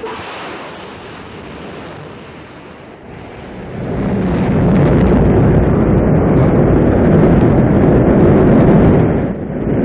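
Rocket launch: a sudden rush of engine noise at ignition, building about four seconds in to a loud, deep, steady rumble as the rocket lifts off, with a brief dip near the end.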